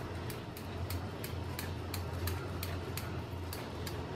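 Processed cheese being grated on a flat stainless-steel hand grater: short, scratchy strokes repeating about four times a second.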